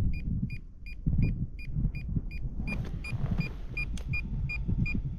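An electronic beep, short and high-pitched, repeating evenly about three times a second over an uneven low rumbling noise.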